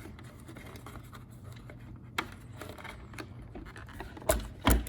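Small handling noises from unplugging the speaker wire connector inside an opened iRobot Roomba 690: light scraping and small plastic clicks, with two sharper knocks near the end.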